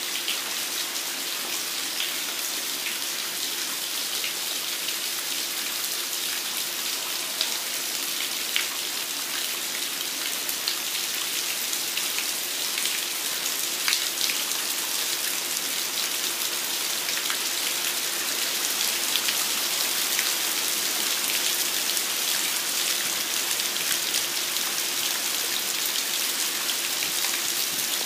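Steady heavy rain falling on a yard and patio, with nearby drops ticking sharply now and then; it grows slightly louder past the halfway point.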